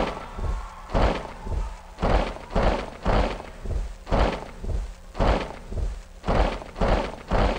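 Heavy percussion hits of a hip-hop stage intro beat, deep thumps with a sharp crack, evenly spaced about twice a second.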